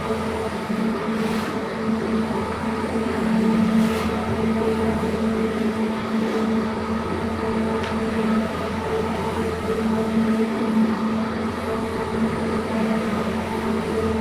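A carpet-cleaning machine's motor running steadily, a constant hum with a rushing noise under it.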